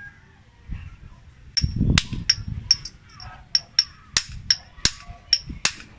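Small hammer tapping a new bearing back into a car's belt tensioner pulley to seat it: about a dozen sharp metallic taps, each with a brief ring, starting about a second and a half in.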